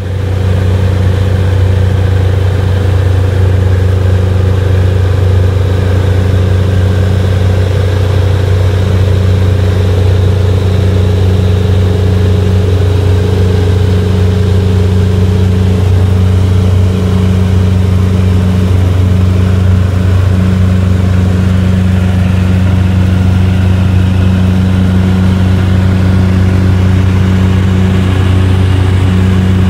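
Jabiru J170 light aircraft's four-cylinder engine and propeller droning steadily in cruise flight, heard from inside the cabin.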